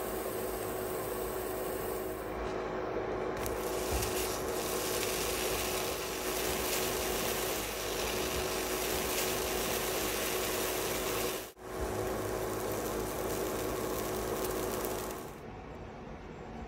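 Steady hiss with a low hum from the stove as chebab pancakes cook on a nonstick griddle pan. It cuts out for an instant a little past the middle and stops shortly before the end.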